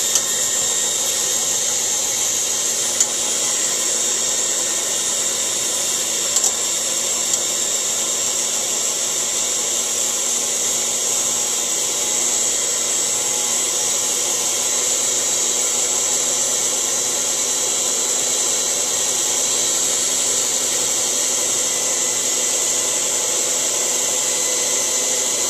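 Electric hand mixer running at a steady speed, its beaters whipping egg whites into a stiff foam in a stainless steel bowl. A few brief clicks sound between about three and seven seconds in.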